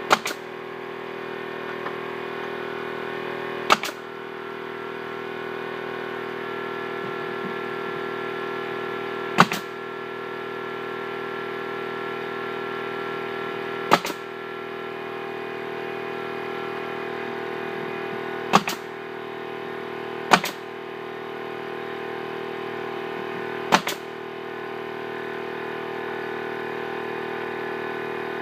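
Pneumatic nail gun firing seven times, a few seconds apart, over the steady drone of a running air compressor.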